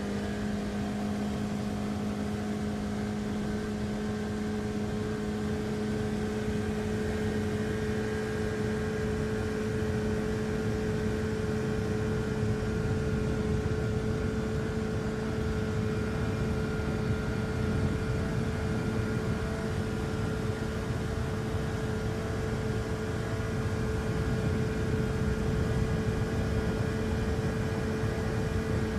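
An engine running steadily at a constant speed: a steady hum over a rumble, its pitch creeping up slightly.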